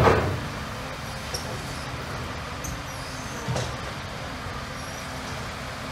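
Heavy diesel engine running steadily at low revs, with a loud knock right at the start and a smaller one about three and a half seconds in.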